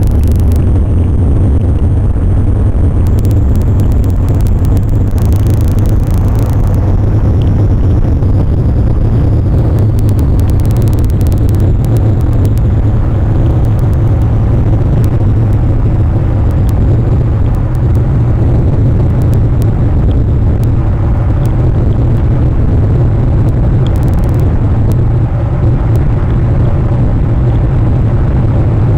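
Steady, loud low rumble of wind and surf on the nest camera's outdoor microphone.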